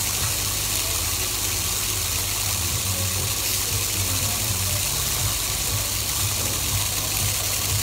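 Steady rushing background noise with an uneven low hum underneath.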